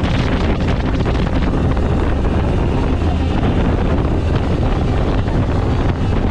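A speedboat running fast: steady engine noise and rushing water under heavy wind buffeting on the microphone.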